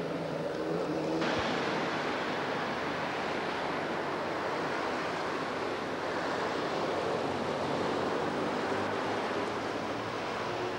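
A steady rushing noise with no distinct events, which turns brighter and fuller about a second in.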